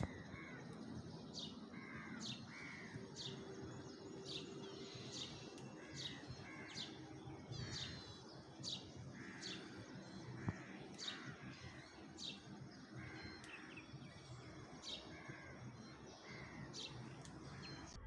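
Small birds chirping: a steady run of short, sharp high chirps, roughly one a second, over softer, lower calls.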